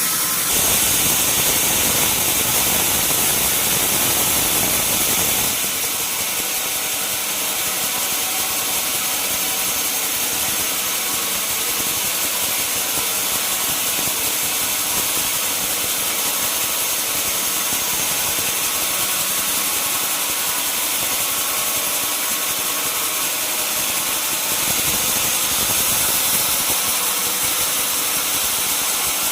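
Sawmill saw running steadily with a high, hissing whine. The noise grows rougher and deeper for the first five seconds or so and again near the end, as timber is fed through the blade.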